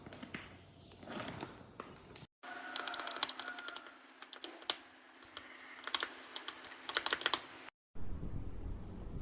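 Typing on a mechanical keyboard: quick runs of key clicks. It cuts off suddenly near the end, giving way to a low steady rumble.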